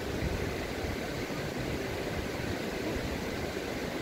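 Steady rushing of a shallow mountain stream over rocks.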